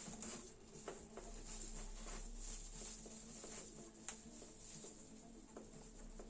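Faint, scattered clicks and light taps of small objects being handled, with a sharper click about four seconds in, over a steady low hum and hiss.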